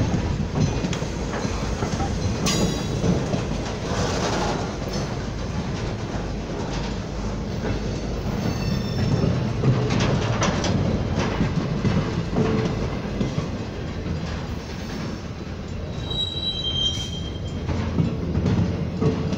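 Union Pacific maintenance-of-way work train's loaded flatcars rolling past: a steady low rumble of steel wheels on rail with irregular clanks and clicks. Brief high wheel squeals now and then, the clearest near the end.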